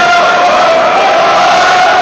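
Spectators at a kickboxing bout shouting and cheering loudly, with one voice holding a long, drawn-out cry.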